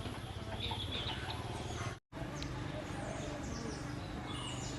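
Outdoor ambience with short, high bird chirps over a steady low background hum. About two seconds in, the sound cuts out for a split second.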